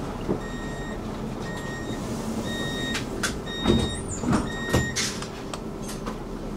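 Tram door warning beeper sounding a high beep about once a second, five times, over the carriage's steady rumble. Several sharp clunks come about halfway through, as of the sliding doors shutting.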